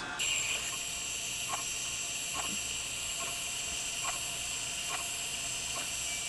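Mazak Integrex mill-turn machine running an end mill through finish passes on a pocket: a steady hum and hiss with a high-pitched whine, and a soft tick repeating a little more than once a second.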